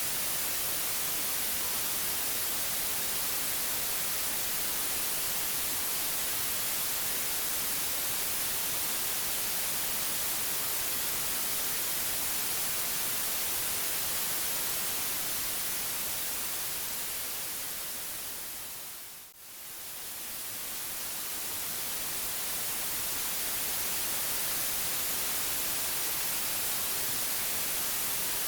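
Steady white noise, an even hiss strongest in the high end. About two-thirds of the way in it fades smoothly down to a brief low point, then swells back to full level.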